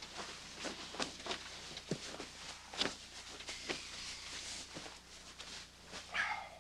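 Rustling of bedclothes and body movement, with several sharp clicks and soft knocks and a short squeak near the end.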